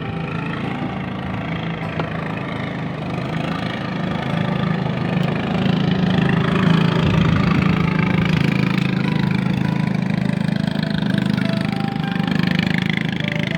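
An engine running steadily, growing louder about four to six seconds in and then holding.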